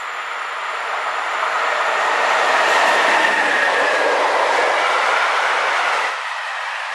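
Freight train of tank wagons rolling past at speed, steady wheel-on-rail rumble and rattle that grows louder over the first few seconds as the train reaches the track beside the listener.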